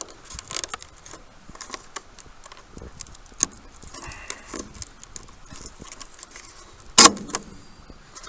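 Small plastic wire-harness plugs being unclipped and pulled off battery-management boards: a scatter of light clicks and rattles of plastic and wire, with one loud sharp snap about seven seconds in.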